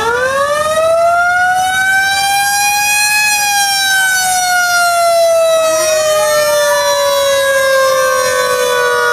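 A loud siren wailing, its pitch climbing steeply at the start, rising slowly and then sinking in a long slow fall. A second siren tone winds up from low about halfway through, and the two pitches sound together.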